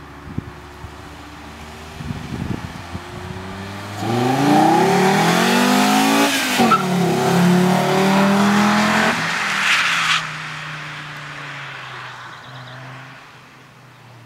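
Audi Coupé (Typ 81/85) engine accelerating hard. It is quiet at first, turns loud about four seconds in, and the pitch rises. It drops sharply once about halfway through, climbs again, then falls away to a quiet running sound after about ten seconds.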